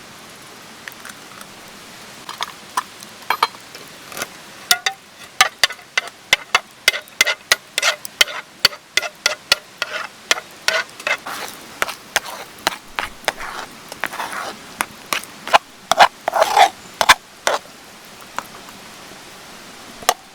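A run of irregular knocks and clinks of hard objects being handled, several a second at times, loudest about sixteen seconds in, then thinning out near the end.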